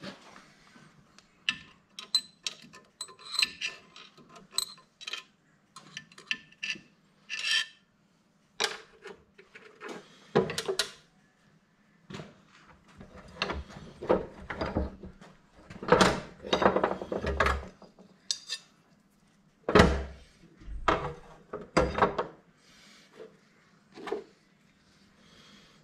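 Metal gearbox parts and tools being handled: small steel parts clinking with brief ringing in the first few seconds, then scraping and several heavier knocks in the second half.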